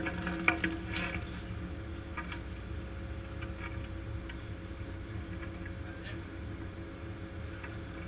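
Heavy steel chain links clinking as a crewman handles and counts out the chain: a few sharp clinks in the first second, then fainter scattered ones. Under them runs a steady low machinery hum.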